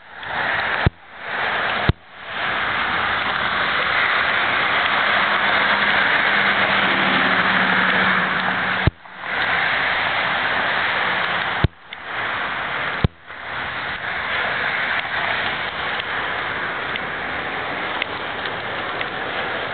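Steady hiss of city street traffic, swelling for several seconds in the middle as a vehicle with a low engine note passes. The sound drops out almost completely several times for a split second, each gap starting with a sharp click.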